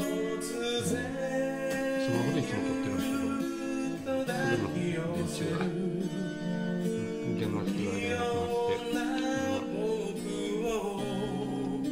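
Background song: a man singing over acoustic guitar.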